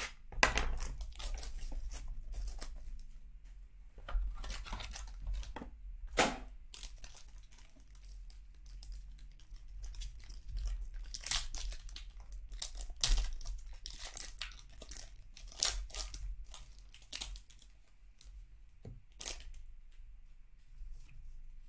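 Foil trading-card pack wrapper being torn open and crinkled by hand: irregular crackling rips and rustles, with a few sharper tears.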